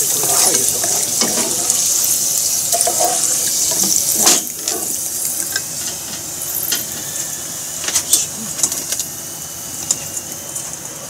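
Hot frying oil sizzling and crackling in a pan as fried pieces are scooped out with a mesh strainer, with a sharp clatter about four seconds in. After that the oil left in the pan sizzles more quietly, with scattered pops.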